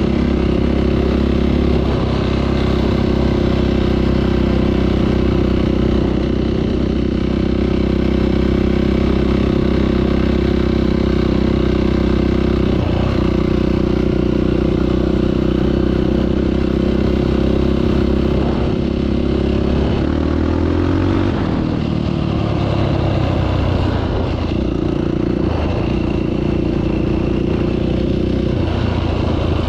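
Off-road vehicle engine running steadily while riding a trail, with some clattering. The engine note drops about twenty seconds in, then picks back up.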